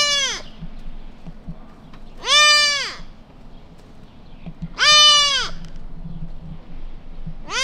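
Newborn whitetail fawn bleating for its mother: two full high cries about two and a half seconds apart, each rising briefly then falling in pitch, with the tail of one call at the start and the next call just beginning at the very end.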